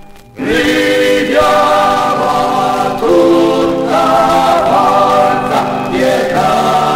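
Male vocal group singing an Italian partisan song in long held chords, coming in about half a second in after a brief pause.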